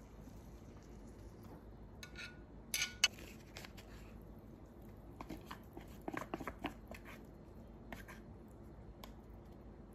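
Faint food-handling sounds: metal tongs click sharply against a container a few times about two to three seconds in as grilled pork pieces are lifted onto a plate. Then come soft sticky scraping and squishing as natto is pushed out of its plastic pack with wooden chopsticks.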